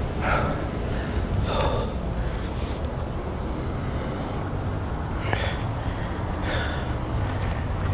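Wind rumbling on a chest-mounted camera's microphone, with a person's heavy breaths heard several times.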